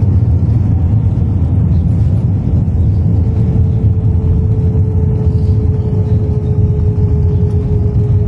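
Cabin noise of an Airbus airliner in its landing roll: a loud, steady rumble of the engines and the wheels on the runway, with a faint steady whine joining about three seconds in.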